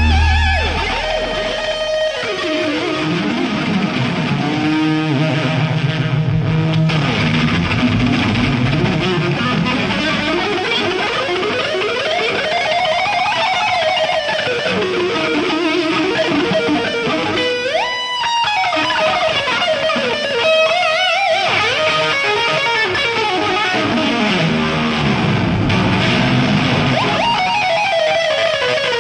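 Unaccompanied electric guitar solo on a Stratocaster-style guitar: fast runs of notes sweeping up and down in long arcs, with no bass or drums.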